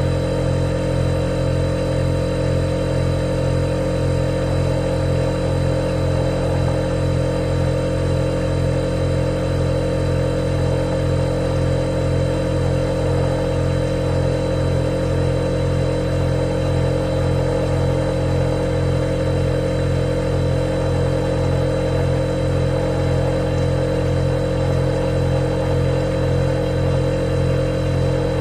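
Refrigerator compressor running with a loud, steady hum, a low drone with a higher tone over it, unchanging throughout.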